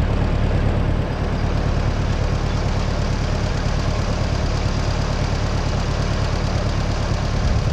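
Case 400 tractor's gas engine running steadily, a little quieter from about a second in.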